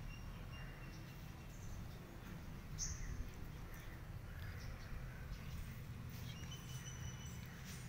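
Faint bird calls: a few thin, high whistled notes and one short sharp chirp about three seconds in, over a steady low rumble.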